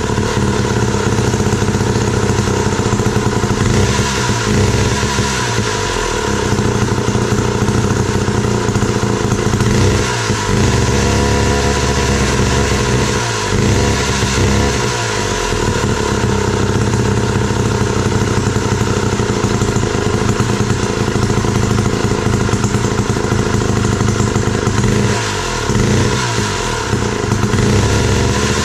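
Wright B-520 reciprocating saw's 115 cc two-stroke engine running, with the engine speed dipping and picking up again several times.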